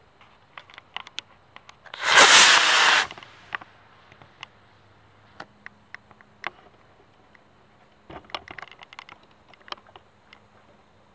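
Estes Mars Snooper model rocket's black-powder motor firing at lift-off: a loud hiss about two seconds in that lasts about a second and then cuts off. Scattered faint clicks and ticks before and after.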